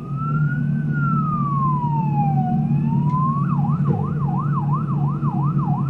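Emergency vehicle siren sounding a slow rising and falling wail, then switching about three and a half seconds in to a fast yelp of about three sweeps a second, over a steady low hum.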